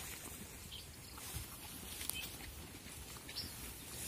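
Quiet outdoor ambience with faint rustling and a few short, faint high-pitched chirps, while a lamb is held for eye drops.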